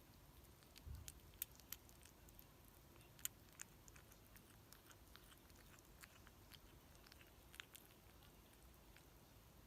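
Kitten chewing and biting its food close to the microphone: faint, irregular small crunchy clicks, with a soft low thump about a second in.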